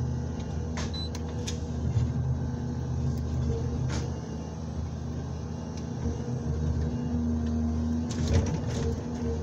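Komatsu 901XC forest harvester running steadily, heard from inside its cab: a continuous engine hum with a few sharp knocks and cracks as the harvester head grips and works a birch trunk.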